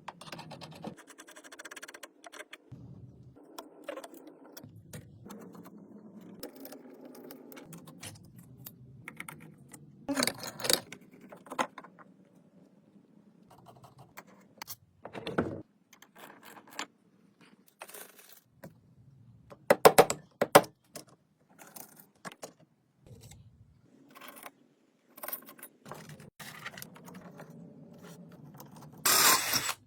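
Small metal parts and hand tools clinking, clicking and scraping as they are handled in a workshop. There are louder clattering bursts about a third of the way in and near the end, and a quick run of sharp metallic strikes around the middle.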